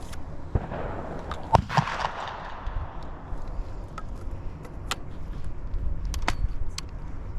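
Scattered sharp cracks and clicks on a skeet field: shotgun shots from the surrounding range and gun handling. The loudest crack comes about one and a half seconds in, with a short ring after it.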